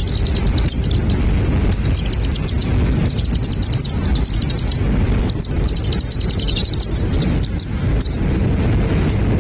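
Bird calling in several quick runs of rapid, high chirping notes, each a fraction of a second to a second long. A steady low rumble runs underneath.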